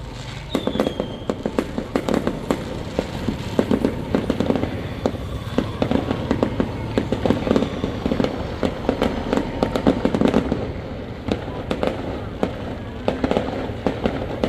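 Fireworks going off in a dense, irregular string of crackling pops and bangs, with a short falling whistle about half a second in.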